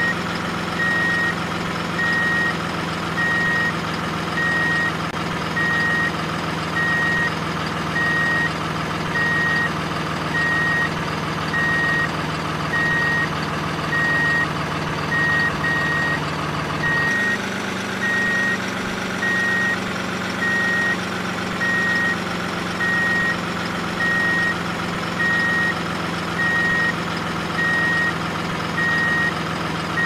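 Truck reversing alarm beeping steadily about once a second over the steady hum of a running truck engine; the engine note steps lower about halfway through.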